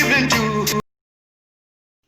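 Background music with singing that cuts off suddenly under a second in, leaving dead silence for the rest of the time.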